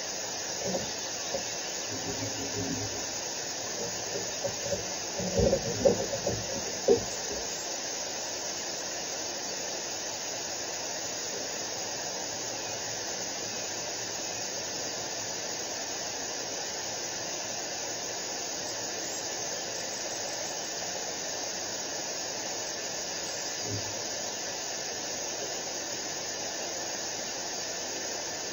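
Steady hiss from an osprey nest camera's outdoor microphone, with a cluster of low knocks and bumps in the first seven seconds, the loudest about six to seven seconds in, and one faint bump near the end.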